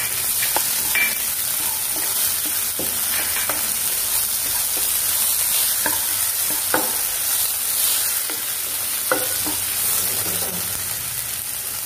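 Sprouted mung beans frying in a little oil in a nonstick pan, sizzling steadily as a wooden spatula stirs them, with a few light scrapes and taps of the spatula against the pan.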